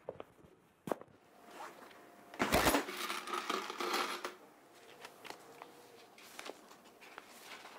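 A few coins rattling and clinking in a clear plastic jar, loudest for about two seconds starting around two and a half seconds in, after a couple of sharp clicks. Lighter clicks and rustling of a paper envelope being handled follow.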